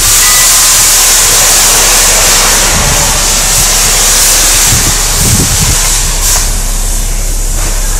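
Steam locomotive hissing loudly and steadily as it blows off steam, easing somewhat after about six seconds. This is 2-6-0 Canadian National 89. Wind rumbles on the microphone underneath.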